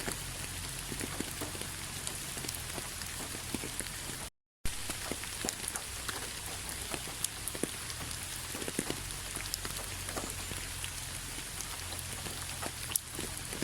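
Steady rainfall: an even hiss with scattered sharp raindrop impacts. The sound cuts out completely for about a third of a second a little over four seconds in, then resumes.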